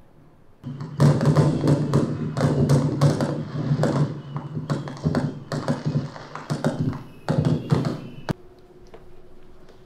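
Recorded fireworks sounds from a projected fireworks show: a rapid run of bangs and crackles over a low rumble. It starts just under a second in and cuts off abruptly about eight seconds in.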